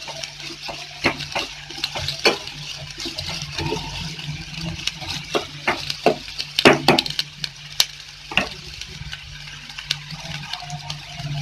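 Chopped onions sizzling in hot oil in a stainless steel pot while being sautéed, with a spatula scraping and clicking against the pot, a few louder knocks a little past the middle. A steady low hum runs underneath.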